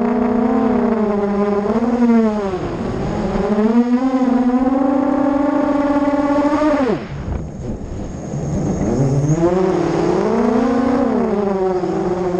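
Whine of the ZMR250-clone quadcopter's four RCX 2205 2300 kV brushless motors and propellers, heard from the on-board camera, its pitch wavering up and down with the throttle. About seven seconds in the whine drops away quickly and quietens as the throttle is chopped, then climbs back up some two seconds later.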